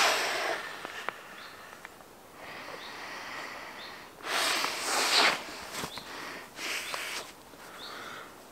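Mouth blowing air into the one-way pressure valve of a Decathlon Helium inflatable camping pillow: several puffs of breath, the loudest about four seconds in, with breaths drawn in between.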